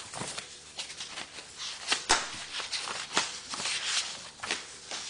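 Papers rustling and being handled on a desk, with irregular light knocks and clicks, the sharpest about two seconds in.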